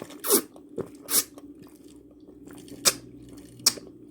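A person tasting freshly blended tomato juice with four short, loud sips and lip smacks, spaced out over a few seconds.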